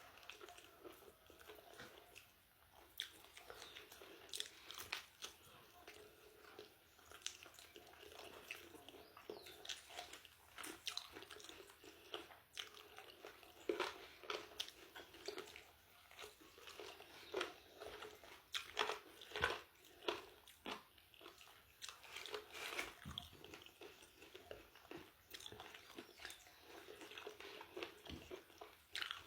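Close-up chewing and biting of fried chicken chicharrón, with irregular crunchy crackles from the fried pieces throughout.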